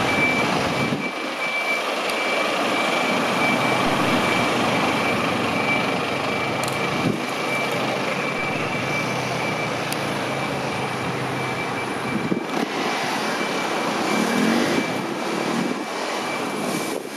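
Scania fire engine's diesel engine running as it reverses slowly into its bay, with its reversing alarm beeping at one high pitch.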